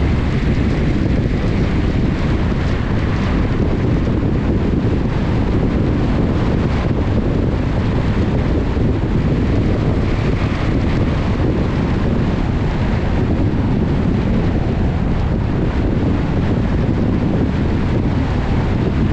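Steady wind rumble on a GoPro's microphone during a drive, mixed with the road and engine rumble of the moving vehicle.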